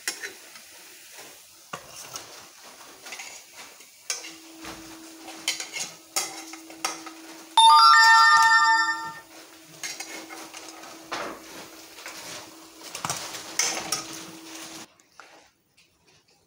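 A metal spatula scrapes and clinks against a steel karai as fried banana-flower chops are lifted out of the oil, over a light sizzle. About halfway through, a loud ringing tone with several pitches sounds for about a second and a half.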